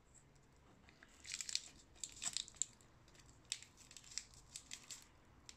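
Maine coon cat licking and chewing at a meaty treat stick held out in its wrapper: a run of small, irregular wet clicks and smacks from its mouth, starting about a second in.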